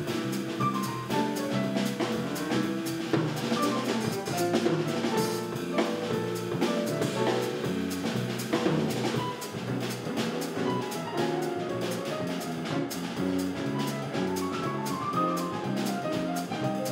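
Jazz piano trio playing live: grand piano, electric bass guitar and drum kit.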